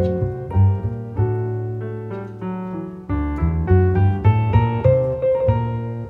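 Background piano music: a melody of struck notes over low bass notes.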